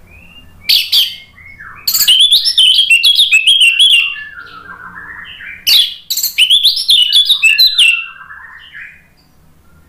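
Orange-headed thrush (anis merah) singing: a short phrase about a second in, then two long, loud runs of quick, varied whistled notes, with softer, lower warbling between and after them.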